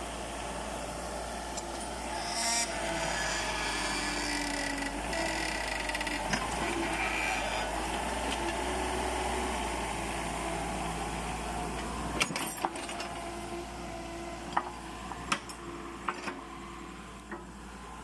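Small tracked excavator's engine running under hydraulic load as the arm swings and the bucket digs into grassy ground, its note shifting in pitch in the first few seconds. In the second half there are several sharp knocks and cracks as the bucket works the ground and vegetation.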